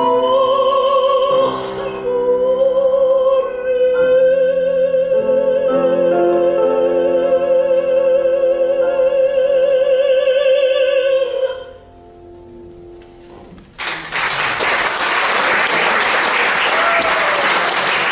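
A mezzo-soprano, accompanied on grand piano, holds a long final note with a wide vibrato that ends about eleven seconds in, and the piano's last chord fades. About fourteen seconds in an audience breaks into loud applause.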